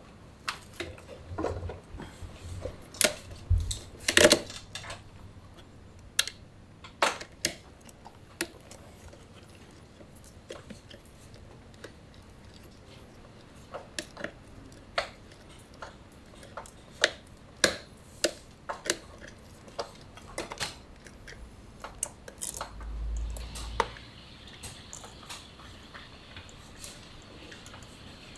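Irregular clinks and knocks of metal hand tools and parts being handled during motorcycle workshop work, the loudest knocks about four seconds in, with a brief low rumble about three-quarters of the way through.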